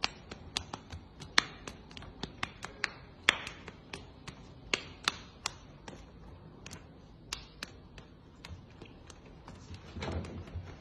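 Two hairless cats slapping each other with their paws: an irregular run of sharp, light slaps, two or three a second.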